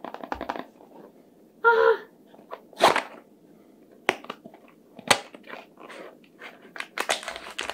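A small cardboard blind box being handled and its top flap pulled open: scattered taps, scrapes and clicks of paperboard, with a brief voice sound about two seconds in and denser rustling near the end.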